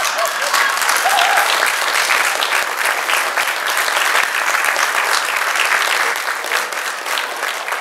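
Theatre audience applauding: dense, steady clapping that eases off slightly near the end.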